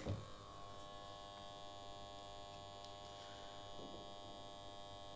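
Panasonic HT40 4.1 home theatre speakers humming with nothing playing: after a faint click at the start, a steady, faint buzz with many even overtones. The owner calls it an irritating fault of the system when powered on or on any input, and doesn't know whether his unit is faulty or the model has this problem.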